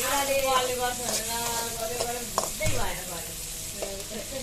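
Onions and tomatoes with turmeric frying and sizzling in oil as they are stirred in a pan, with a couple of sharp knocks about halfway through.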